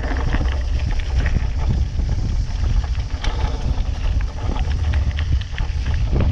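Mountain bike riding fast down a stony dirt trail: a steady low wind rumble on the microphone, with frequent clicks and rattles from the bike and its tyres over stones and gravel.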